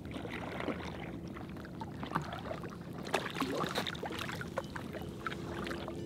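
Double-bladed kayak paddle dipping into calm lake water as an inflatable kayak is paddled, with small irregular splashes and water trickling off the blades.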